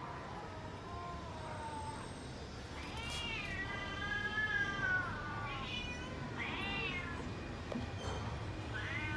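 Cats meowing: about five separate meows that rise and fall in pitch, a faint one near the start, a long drawn-out one of about two seconds in the middle, two short ones after it, and another starting near the end. A low steady rumble lies underneath.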